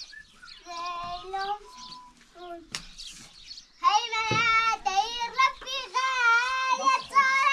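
A young child singing in a high voice, faint at first and then loud with long held, wavering notes from about four seconds in. A single sharp knock near three seconds in.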